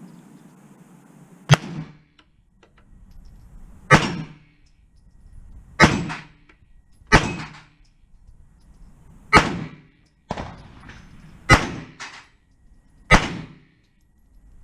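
Seven single gunshots fired one at a time at irregular intervals of one to two seconds, with a few fainter sharp cracks between some of them.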